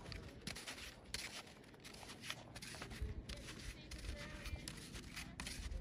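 Faint, irregular crunching of snowshoes in snow, a crisp crackle every few tenths of a second over a low rumble.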